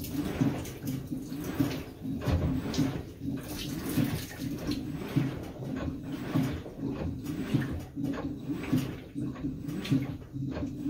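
GE GTW720BSN0WS high-efficiency top-load washer running a wash cycle: water sloshing and splashing in the tub over a steady low machine hum, rising and falling unevenly as the load is worked.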